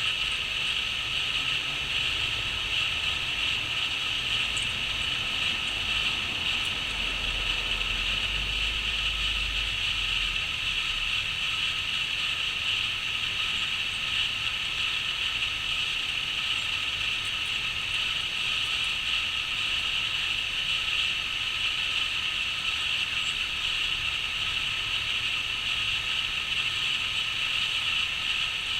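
Continuous chorus of crickets chirping, a dense, even trill that never lets up, with a brief low rumble about a quarter of the way in.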